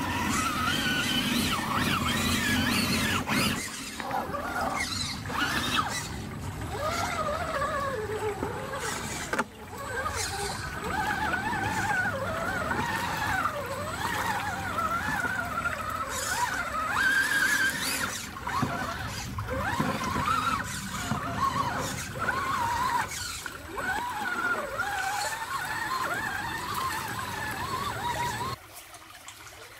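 Electric motor and gear drivetrain of a Redcat Gen8 Scout II 1/10-scale RC crawler whining, its pitch rising and falling with the throttle, with splashing and knocks as it crawls through creek water over rocks. The sound drops away abruptly near the end.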